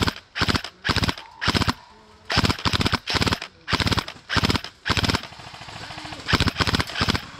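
Airsoft gun firing a string of short full-auto bursts, each a rapid rattle of shots, about two bursts a second, with a brief pause about two seconds in and a longer one about five seconds in.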